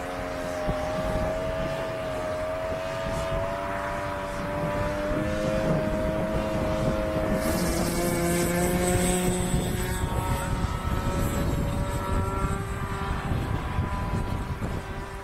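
Radio-controlled model airplane engine and propeller running in flight. The pitch wanders up and down with throttle and passes, stepping higher near the end.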